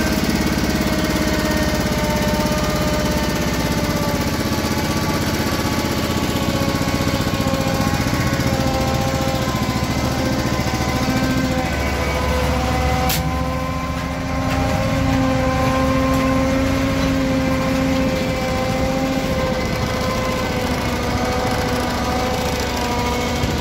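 Yağmur YET 510 patpat's engine running steadily while it hauls a trailer load of stones, its note wavering slightly. There is a short click about 13 seconds in, and the engine sound dips briefly just after it.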